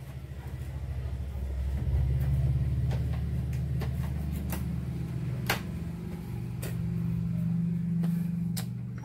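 A low, steady mechanical rumble that swells about two seconds in and holds, with a few faint clicks.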